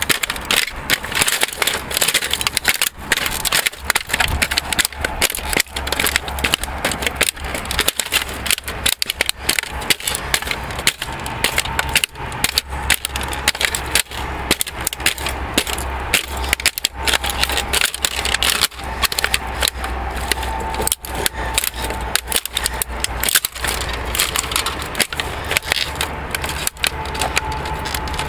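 Plastic fax machine being crushed under leather riding boots: a rapid, irregular run of cracking, snapping and crunching as the casing and inner parts break, over a steady low hum.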